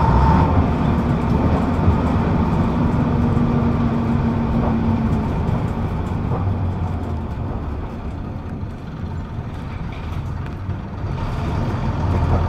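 Rear-mounted diesel engine of a Leyland Atlantean double-decker bus, heard from the back seat close above it, running steadily under way with road noise. It eases off about two-thirds of the way through, then picks up again near the end.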